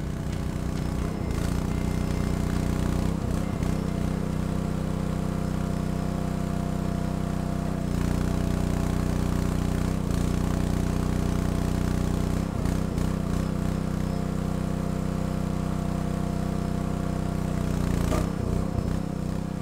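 Small gas engine of a Wallenstein WXR545PL towable hydraulic log splitter running steadily, its note shifting several times as the hydraulic ram works.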